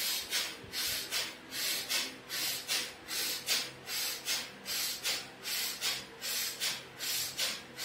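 A man doing rapid, forceful yoga breathing, quick breaths in and out in an even rhythm of about two and a half hissing breath sounds a second, a set of about ten breaths as an exercise for wheezing and asthma.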